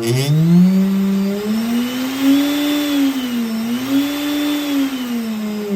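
CNC spindle motor on a 3D-printed CNC machine, turned up with its speed potentiometer. Its whine rises sharply in pitch, holds high with a brief dip in the middle, then starts falling near the end.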